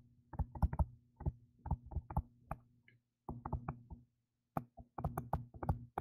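A stylus tapping and clicking on a tablet's touchscreen during handwriting. It gives clusters of quick light ticks, one burst per letter or stroke, with short pauses between them.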